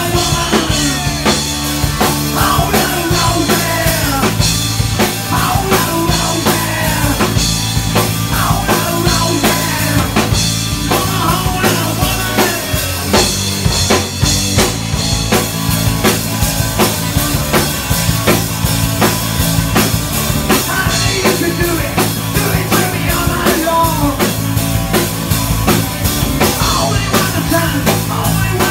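Live rock band playing loud and steady: electric guitars, a drum kit struck throughout, and a male lead singer on a microphone.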